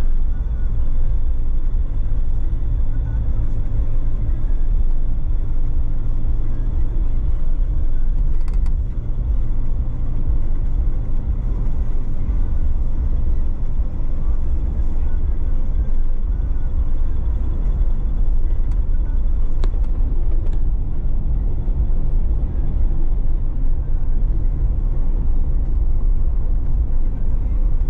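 Car driving along a narrow country lane, heard from inside the cabin: a steady low engine and road rumble, with a couple of light knocks.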